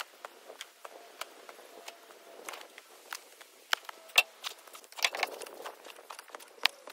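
A metal shovel digging into sandy dirt and tipping it into a plastic tub, heard as a run of sharp scrapes and knocks. The loudest knock comes about four seconds in, and a denser rush of scraping and falling soil follows a second later.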